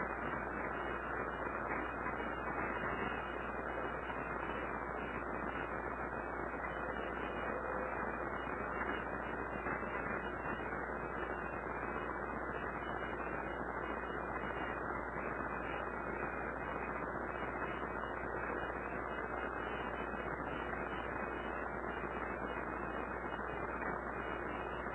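Steady background hiss with a low hum, unchanging throughout, with no distinct events: room tone and recording noise.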